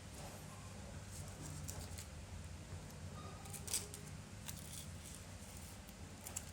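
A few light clicks and taps of small repair tools on a smartphone, the loudest about three and a half seconds in, over a steady low hum.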